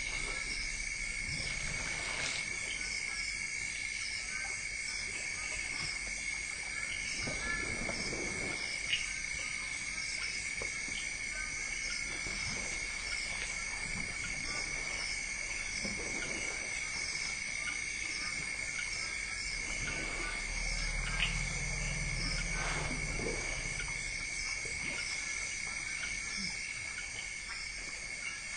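Steady insect chorus, cricket-like: one constant high tone with faster pulsing trills above it. A few soft low swishes and knocks from forest elephants feeding at the water's edge come through now and then.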